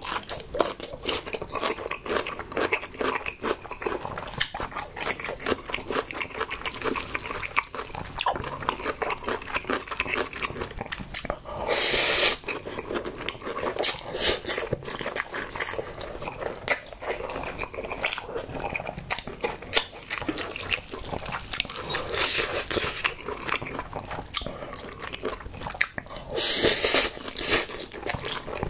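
Close-miked chewing of spicy Buldak carbonara instant ramen noodles: steady wet mouth clicks and smacking. Two louder slurps of noodles come about 12 seconds in and again near the end.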